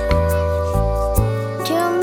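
Background music: held chords over a bass line that changes note every half second or so, with a gliding melody line coming in near the end.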